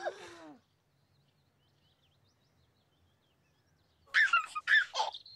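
A voice trailing off at the start, then near quiet with faint bird chirps, and about four seconds in a baby laughing and babbling.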